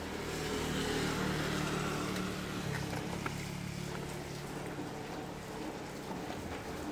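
Kymco Racing 150 scooter's single-cylinder engine running at idle, a little louder in the first couple of seconds and then steady.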